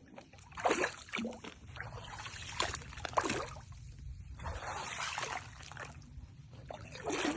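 Footsteps wading through swamp water: each stride sloshes and splashes, in uneven steps roughly a second apart.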